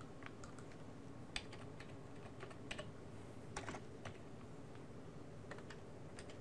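Faint, irregular keystrokes on a computer keyboard: a handful of separate clicks spread over several seconds.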